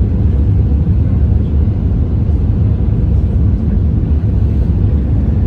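Steady low rumble of engines and rushing air inside an Airbus A320's cabin over the wing on short final approach, moments before touchdown.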